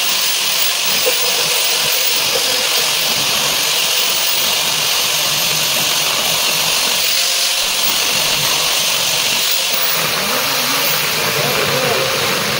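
Power drill running loudly and continuously, a steady high-pitched rushing noise with no pauses.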